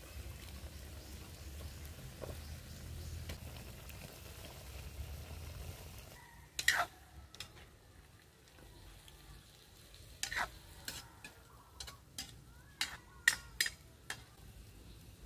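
Chicken stew simmering in a metal wok over a wood fire with a steady low noise. From about six seconds in, a metal ladle stirs the pot, clinking and scraping against the wok about ten times.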